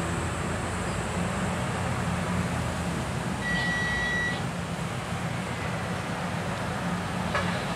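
Steady low engine rumble over a wash of traffic-like noise, with a single high tone lasting about a second a few seconds in.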